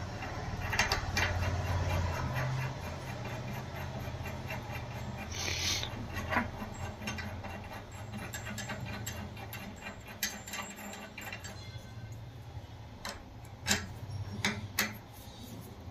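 Light metallic clicking and scraping of a bolt and washer being turned by hand into a freshly tapped thread in a square steel tube, then a few sharper clicks near the end as a spanner meets the bolt head. A low steady hum runs underneath.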